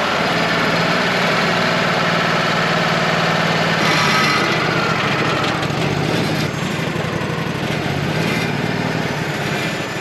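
Wood-Mizer LT35 portable sawmill running steadily, its engine driving the band blade through a black oak log.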